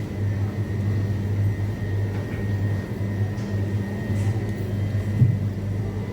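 Steady low hum of supermarket refrigeration and ventilation, with a thin high whine above it. A single light knock about five seconds in.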